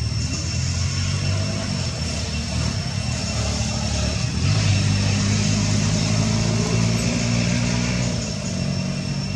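A motor vehicle engine running steadily, growing louder about four and a half seconds in and easing off near the end, with a steady high-pitched hiss behind it.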